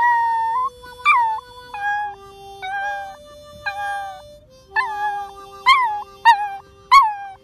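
A dachshund howling along to music: about nine howls, each starting high and sliding down, coming quicker near the end, over steady held musical notes.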